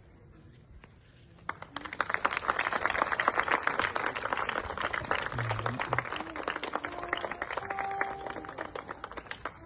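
A crowd clapping and applauding, starting suddenly about a second and a half in, loudest soon after and tapering off near the end.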